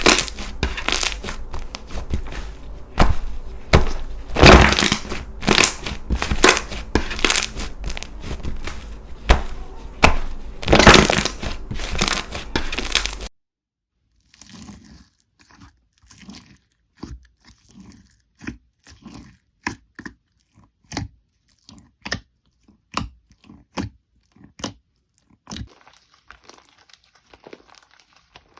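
Slime being squeezed and pressed by hand: dense crunching and crackling for about the first half, then an abrupt cut to quieter, separate sticky pops and clicks, about two a second.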